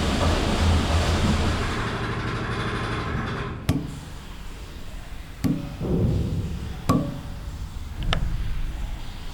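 Interior ambience of a WWII Victory ship's steel hull: a dense rumble with a steady low hum that fades away over the first few seconds. Then four sharp metallic knocks and clanks, spaced a second or two apart, each one echoing through the hull.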